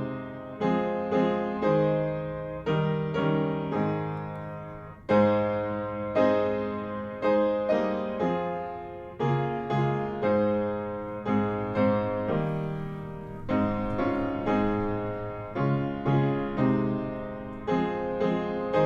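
Piano or electric keyboard playing a slow hymn tune in chords, each struck and left to fade, at an even walking pace.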